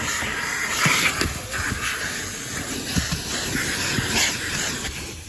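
Car-wash vacuum hose sucking air over car floor carpet, a steady rushing hiss with a few short knocks.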